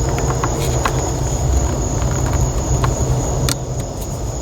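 Crickets chirring steadily over a low rumble. A few light clicks and taps come as a brake light bulb is pushed into its socket.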